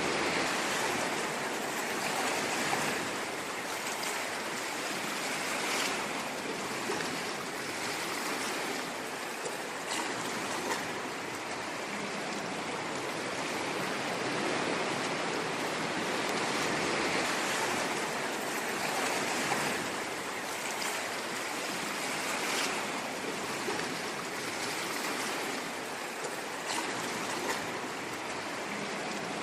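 Ocean waves washing in a steady, unbroken rush with gentle swells in loudness and small splashes.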